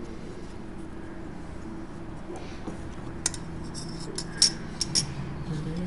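Thin sheet-steel model parts being bent and handled by hand, giving a few sharp light metallic clicks in the second half over a steady low hum.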